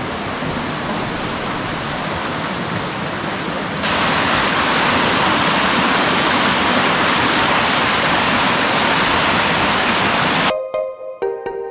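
Fast-flowing creek water rushing and splashing over rocks, a steady roar that gets louder about four seconds in. It cuts off suddenly near the end, and music with held notes begins.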